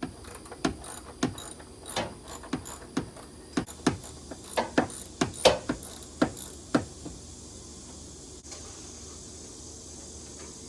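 A series of sharp knocks at uneven spacing for about seven seconds, then a steady low hum.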